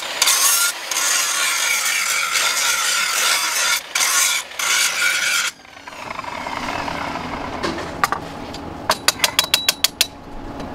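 Angle grinder grinding the steel of an old axe head, a loud high whine that drops out briefly twice and cuts off about five and a half seconds in. After a quieter stretch, a quick run of sharp metallic clicks comes near the end.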